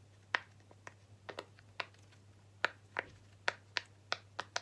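Bubbles of a dinosaur-shaped silicone pop-it fidget toy pressed one after another, giving about a dozen sharp pops at uneven intervals, each with a brief falling pitch.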